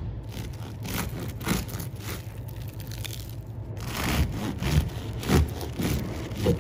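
Long bread knife sawing through the crust of a baked sourdough loaf on a wooden board. The strokes repeat, with a few heavier knocks in the second half.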